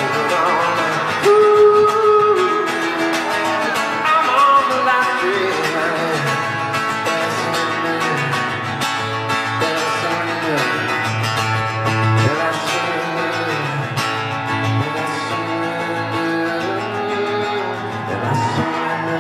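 A solo acoustic guitar played live, strummed with picked melody lines, and a man's singing voice over it at times.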